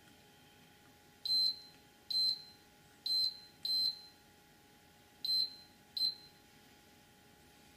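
Multimeter continuity tester beeping six times, each a short single high tone, unevenly spaced, as the probes touch the soldered pins of newly fitted relays on a circuit board. Each beep signals continuity: the solder joints and the repaired track are connected.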